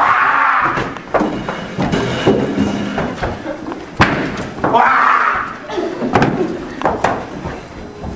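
A commotion of bangs and thuds, a door slamming and chairs being knocked about as people charge through a room, with raised, shrieking voices twice.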